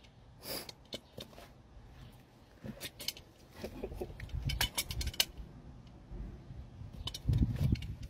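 Adjustable wrench clicking and scraping on a plastic drain pipe cap as it is unscrewed: a string of sharp clicks, with a low rumble in the middle and a louder one near the end.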